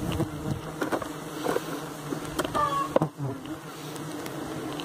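Colony of borá stingless bees (Tetragona clavipes) buzzing in a dense, steady hum over the opened hive box, the many bees stirred up and defensive. A few light knocks come through the buzzing.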